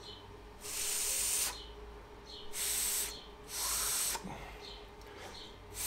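Three breaths blown through a loose pump organ reed, each a short airy hiss with no note sounding: the reed fails to speak when blown by mouth.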